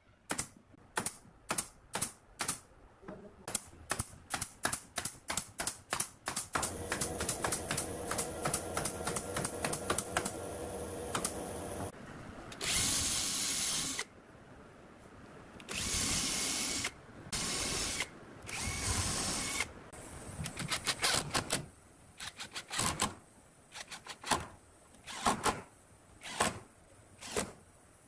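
A pneumatic brad nailer fires a quick run of shots into pine boards, about two to three a second. Then a drill with a countersink bit runs steadily and bores into the wood in several louder whining bursts. Near the end there are short bursts from a cordless driver.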